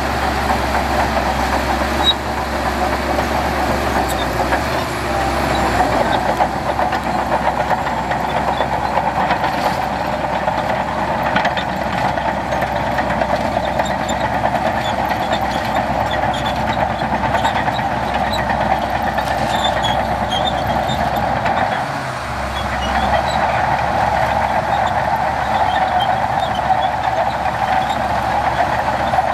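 Heavy diesel earthmoving machinery running steadily under work, with a brief dip in level about three-quarters of the way through.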